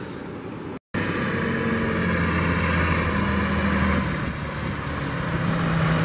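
Farm tractor's diesel engine running steadily while towing a boat trailer over sand, its pitch drifting slightly lower. It starts abruptly after a short stretch of quieter surf.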